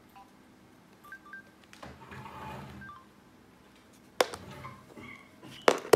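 Key beeps from a Samsung feature phone's keypad as its buttons are pressed: a few short two-note tones. Then rustling as the phone is handled, and two sharp knocks about four and five and a half seconds in.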